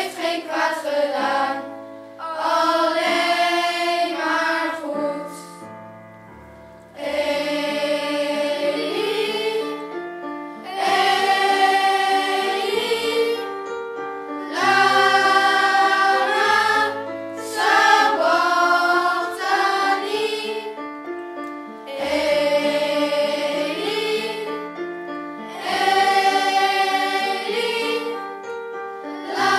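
Children's choir singing a song together, phrase by phrase with short breaks between the lines.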